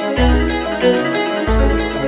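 Background music with plucked strings over deep bass notes, the bass note changing about every second and a half.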